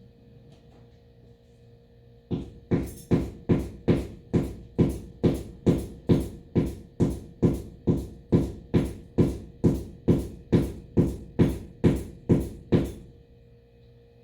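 Repeated hammer strikes into a hard wall, evenly paced at about two and a half blows a second, starting about two seconds in and stopping shortly before the end.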